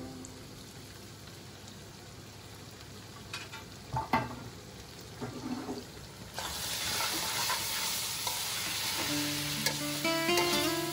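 Minced meat and peppers sizzling in a steel pan. A few clinks from the metal lid come in the first half. About six seconds in the sizzling turns louder and brighter as the pan is uncovered, and a metal spoon stirs and scrapes through the mince.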